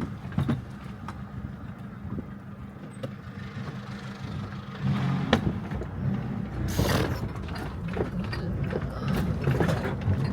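Mercedes Sprinter van's engine running at low speed, growing louder about five seconds in, with scattered knocks and rattles as the van bumps over a rough track; a sharp clatter stands out about seven seconds in.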